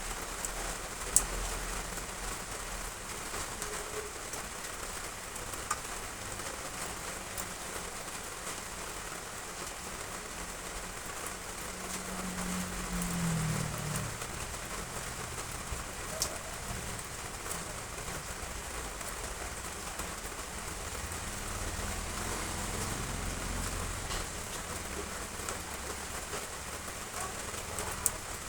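Heavy rain falling steadily, with a sharp louder drop-hit every several seconds. About twelve seconds in, a low sound falls in pitch for a couple of seconds.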